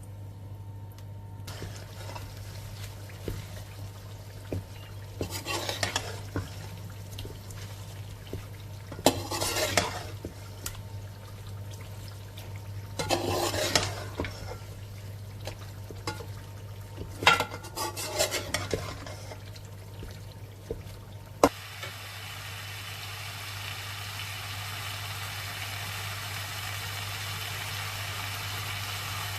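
A utensil scraping and stirring in a pan in several short bouts over a steady low hum. About two-thirds of the way through comes a sharp click, and then a steady hiss that slowly grows louder.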